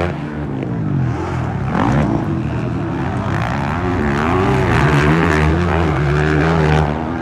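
Motocross dirt bike engines revving, the pitch rising and falling with the throttle, then held steady for a couple of seconds near the end.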